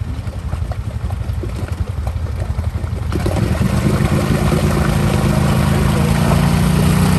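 ATV engine running at low throttle, then revving hard about three seconds in and holding high revs as the wheels spin and churn through deep mud.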